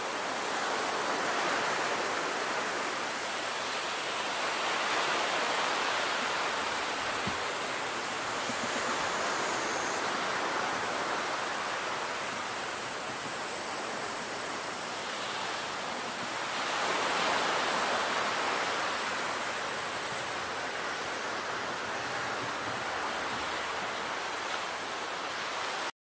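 Sea surf washing against a concrete tetrapod breakwater: a steady rush of water noise that swells and eases every few seconds.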